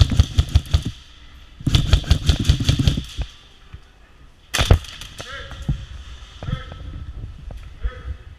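Airsoft guns firing: two rapid strings of shots, each lasting about a second, then a single sharp crack about four and a half seconds in and scattered single shots after.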